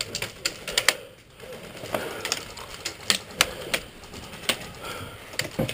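Airsoft guns firing during a skirmish: about a dozen sharp, irregularly spaced snaps and clicks of shots, some in quick pairs.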